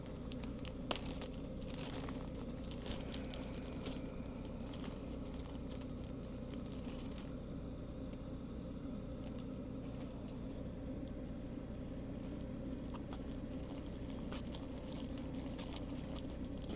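Hcalory diesel air heater running with a steady low hum, with a few scattered clicks of something being handled.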